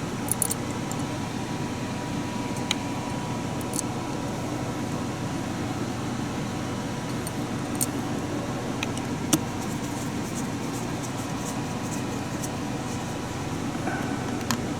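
Steady fan-like hum and hiss in the room, with a few light clicks and taps of small metal parts being handled while the window motor is put back together.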